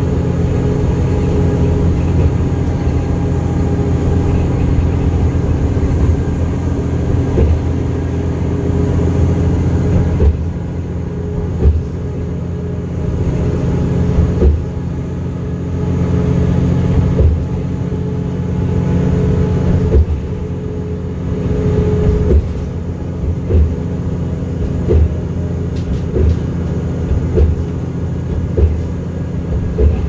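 City bus running at highway speed, heard from inside the cabin: a steady engine hum and road noise, with short knocks and rattles every second or two from about a third of the way in.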